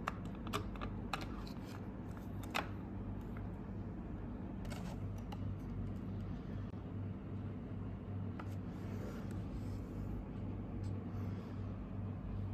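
Scattered light clicks and taps, as of small plastic parts being handled, over a low hum that pulses about twice a second.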